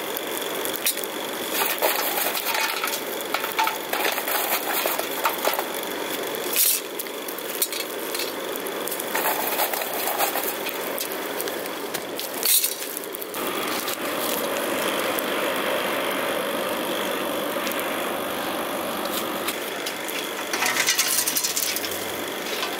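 Coal forge fire burning hard under forced air from its blower, a steady rushing noise that becomes fuller and steadier about halfway through, with scattered clinks and knocks. The fire is melting aluminium in a steel crucible.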